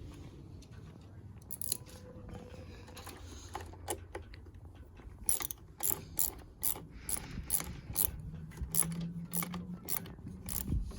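Hand ratchet with a 10 mm socket clicking as it is swung back and forth, tightening the battery terminal clamp nut. A few scattered clicks at first, then a steady run of about two to three clicks a second from about five seconds in.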